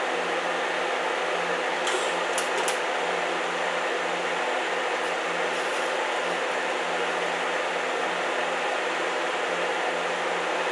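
Electric welder running with a steady hum and hiss while a broken mower-deck pulley is welded, with a few sharp crackles about two seconds in.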